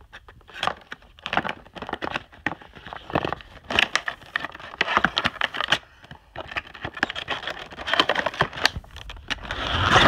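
Cardboard box and plastic packaging of a speaker cable being handled and opened by hand: irregular crinkling, scraping and clicking, with a longer sliding scrape near the end.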